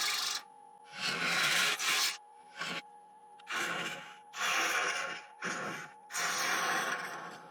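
Gouge cutting the inside of a spinning ash bowl on a wood lathe in about seven short, light passes, each a hiss of shaving wood under a second long, with the lathe's faint steady hum between them.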